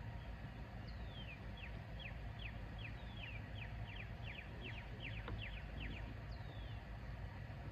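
A small bird calling: a quick run of short, falling chirps, about three a second, for a few seconds in the middle, with a few longer falling notes before and after, over a steady low outdoor rumble.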